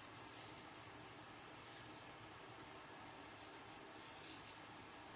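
Near silence: room tone with a faint steady low hum and faint scratchy rustles.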